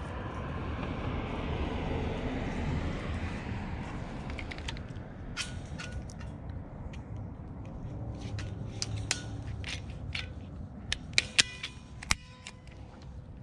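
Rustling handling noise, then a run of sharp clicks as a handheld cable-tie tensioning tool is squeezed to tighten a metal zip tie around a coil of sensor cable. The loudest snaps come near the end, as the tool tightens and cuts the tie.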